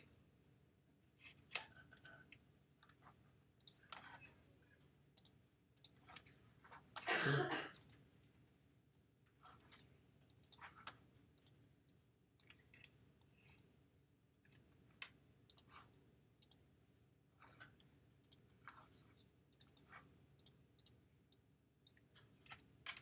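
Scattered, irregular clicks of a computer keyboard and mouse as angle values are typed in and buttons are clicked. About seven seconds in there is one louder, breathy noise lasting about a second.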